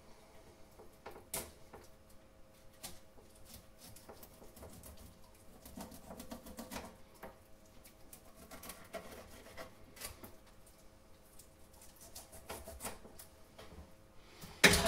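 A knife cuts and scrapes along a horse mackerel (scad) on a wooden chopping board as the sharp bony scutes of its lateral line are sliced off: faint scratchy ticks, taps and scrapes. Just before the end there is one sharp clatter as the knife is put down in a stainless steel sink.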